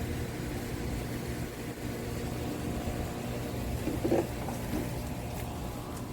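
Steady low hum of a running motor, with a brief higher sound about four seconds in.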